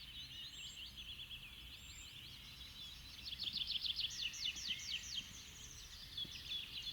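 Songbirds chirping and singing. Scattered high chirps, then a fast trill of quick falling notes about three seconds in that lasts about two seconds.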